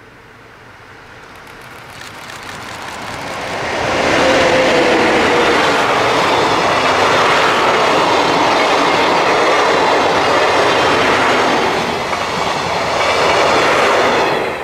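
Passenger train hauled by two ED79 electric locomotives, with ten 14- and 24-series coaches, passing close by. The wheel-on-rail noise builds over the first four seconds, stays loud while the coaches go by, and falls away sharply as the last coach clears at the very end.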